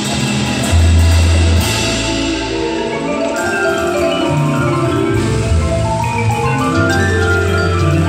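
Indoor percussion ensemble playing: marimbas and other mallet keyboards carry a melodic line of quick notes over low sustained bass notes, the bass loudest about a second in, heard with the echo of a large gym.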